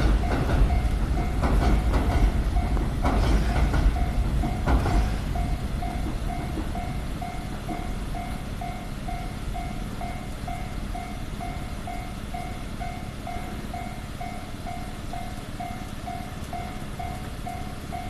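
Railway level-crossing alarm ringing its steady, rapidly repeating electronic ding. During the first five seconds a train rumbles past with several knocks of wheels over rail joints, then fades away while the alarm keeps going.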